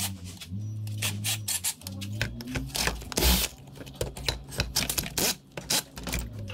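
Hand work on a brush cutter engine: irregular metal clicks and clinks of tools and parts, with a short scraping rasp about three seconds in.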